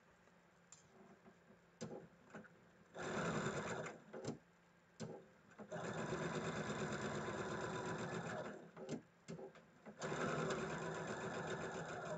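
Domestic electric sewing machine stitching a seam in three runs, stopping and starting: a short run about three seconds in, a longer one from about six to eight and a half seconds, and another from about ten seconds on. A few light clicks come before the first run.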